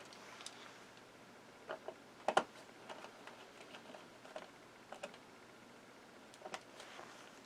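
Faint, scattered clicks and ticks of a small screwdriver driving a screw into a laptop's bottom case, with one sharper click a little over two seconds in.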